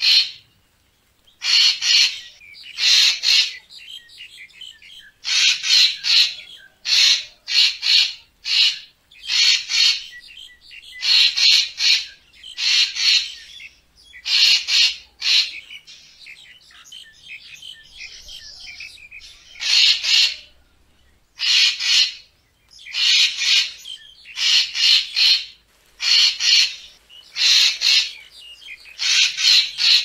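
Racket-tailed treepie calling: a long series of short, harsh calls, many coming in quick pairs or threes, with brief gaps between.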